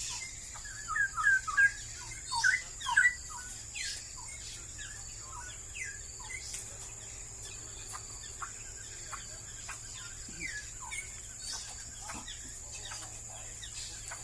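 Straw-headed bulbul singing: two loud bursts of quick, bubbling warbled notes in the first three seconds or so, then only faint scattered chirps.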